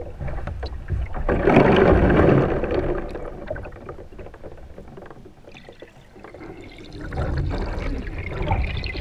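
Water sloshing and bubbling in a plastic wheelie bin as a person's head is plunged into it, heard from under the water. It is loudest about two seconds in, eases off through the middle, and churns up again near the end.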